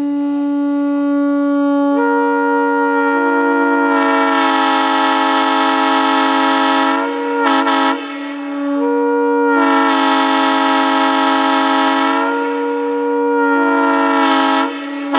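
Multi-chime train air horn sounding a long held blast. It opens on one low note, and more chime notes join over the first few seconds into a loud chord. It breaks off briefly about halfway through, then sounds the chord again until near the end.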